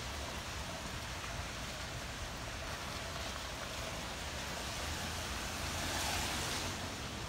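Hurricane wind and rain: a steady rushing hiss over a deep rumble, swelling briefly about six seconds in.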